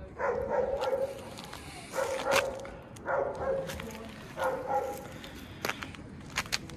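A dog barking four times, a second or so apart, with a few sharp clicks near the end.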